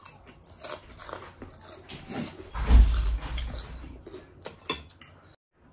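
Close-up eating noises: crunchy bites and chewing, with small crackly clicks throughout. About two and a half seconds in there is a louder dull bump with rustling.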